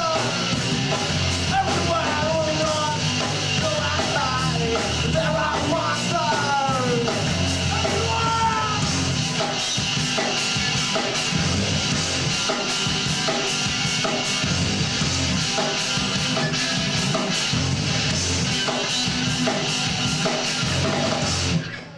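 Live rock band playing: electric guitars, bass and drums with vocals over them. The song cuts off near the end.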